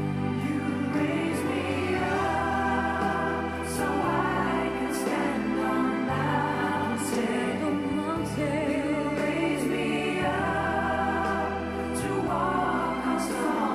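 Music with choral singing over a steady bass line, played through a Bang & Olufsen Beosound Explore portable Bluetooth speaker.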